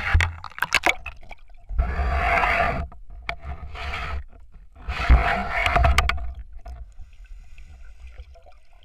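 Underwater sound around a spearfishing diver: a few clicks and knocks, then two rushing, gurgling bursts of about a second each, some three seconds apart.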